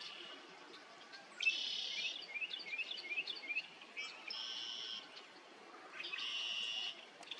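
Bird calls: a buzzy call repeated three times, about two seconds apart, the first followed by a quick run of short rising chirps.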